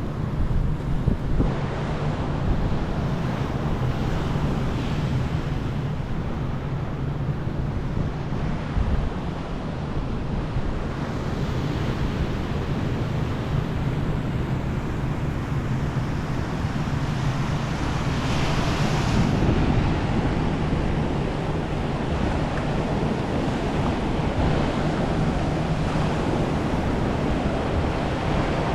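Ocean surf washing onto a sandy beach, with wind rumbling on the microphone. One wave breaks louder about two-thirds of the way through.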